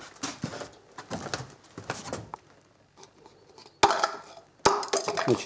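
Raven's beak and claws tapping and pecking at hard surfaces: scattered light taps, then two sharp knocks about four and four and a half seconds in.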